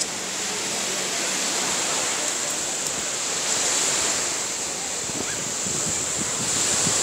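Steady wash of small waves breaking on a sandy beach, mixed with wind on the microphone that rumbles more near the end.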